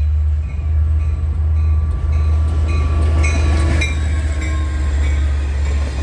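EMD F59PHI diesel-electric locomotive passing close at speed, with a steady deep engine rumble, followed by the rumble of its passenger cars on the rails.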